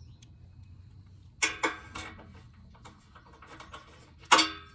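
Small metallic ticks and clinks of 13 mm nuts being started by hand on the studs of a car's front bumper reinforcement bar. Two louder short knocks with a brief ring come about a second and a half in and near the end, as the bar and nuts are handled.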